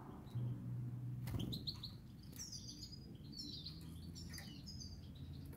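Goldfinch calls: a run of short, high twittering chirps beginning about a second and a half in, just after a brief knock.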